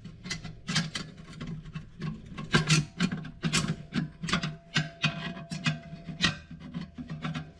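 Notched screwdriver working a thin steel snap ring around its groove in a 200-4R transmission case: irregular metal-on-metal scrapes and clicks, several a second, as the ring is pushed down to seat.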